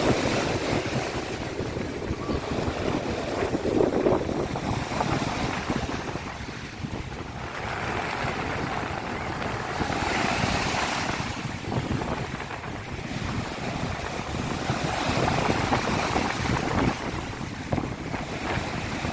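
Waves of the Sea of Azov washing onto the beach in surges every few seconds, with wind buffeting the microphone.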